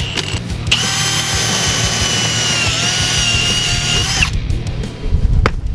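Cordless drill boring through the sidewall of an old 9x20 truck tire to let the air out. The drill's motor whines, stops briefly near the start, then runs again for about three and a half seconds, dipping slightly in pitch as the bit bites, before stopping. A low rumble and a few clicks follow near the end.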